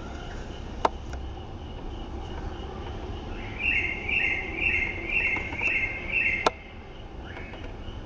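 A bird calls five times in quick succession, each call a short falling note, over a steady high insect drone. Two sharp clicks, one about a second in and a louder one just as the calls stop.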